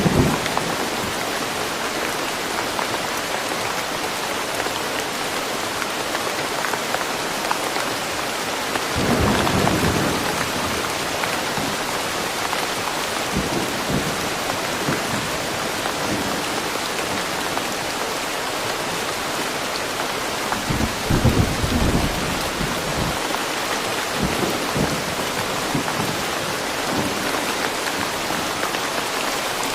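Steady rain falling, with low rumbles of thunder about nine seconds in and again about twenty-one seconds in.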